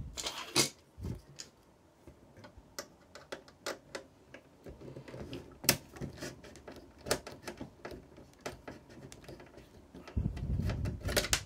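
A screwdriver working tight screws in the sheet-metal chassis of a cassette deck: irregular small clicks and metallic taps, with a low rumble of the unit being shifted near the end.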